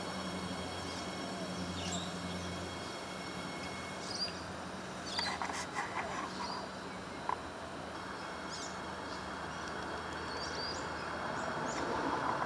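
Adelaide Metro 4000-class electric train rolling slowly into the platform with a low hum, strongest in the first few seconds. Birds chirp over it, and a short run of clicks comes about five seconds in.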